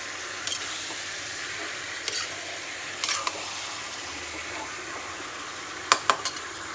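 Marinated chicken pieces sizzling in hot oil: a steady frying hiss with occasional pops, and a few sharp clicks close together near the end.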